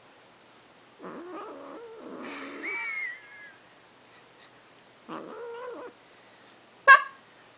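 Persian chinchilla kitten vocalising while being brushed: a long call about a second in that ends in a high, wavering squeal, a shorter call around five seconds, and a brief, sharp, loud cry near the end.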